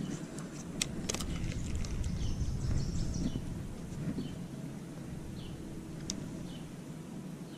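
Low rumble of wind and handling on the microphone, with a few sharp clicks and several short, high bird chirps.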